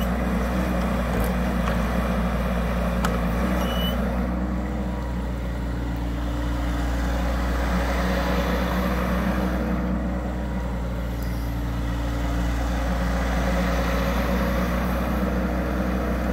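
Bobcat E10 mini excavator's diesel engine running steadily while the boom and bucket are worked, its note dipping slightly a couple of times, around five and ten seconds in.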